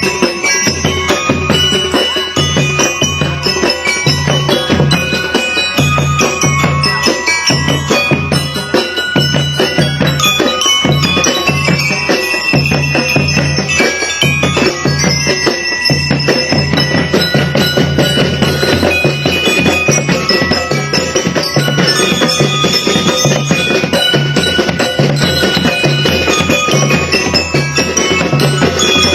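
Music with chiming bell and mallet-percussion notes over a steady bass beat.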